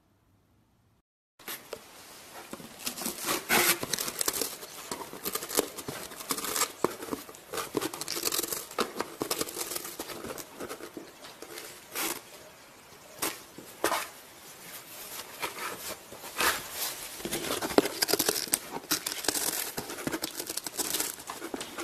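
Cat gnawing on the edge of a cardboard box, heard close up: uneven crunching, crackling and tearing from its teeth, starting suddenly about a second and a half in.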